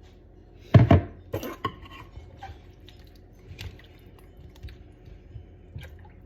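Soup ingredients and a spoon going into a pot of broth: two sharp clatters with splashes about a second in, then light drips and taps.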